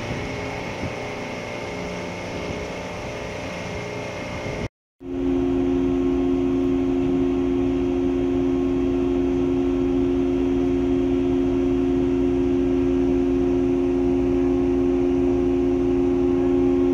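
Steady drone of ship's engines and machinery. For the first few seconds it is mixed with wind and water noise; after a brief cut about five seconds in, a louder, even hum with two strong low tones holds steady.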